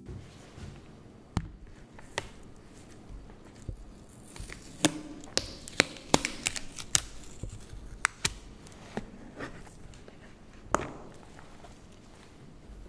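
Plastic lid of a tub of soft modelling clay being pried and peeled off by gloved hands: a scatter of sharp plastic clicks and snaps, most of them in the middle, with one more near the end.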